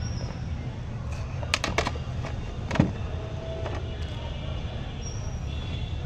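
A few sharp knocks of a steel knife on a wooden chopping board as chopped green chillies are cleared off it, over a steady low rumble of street traffic.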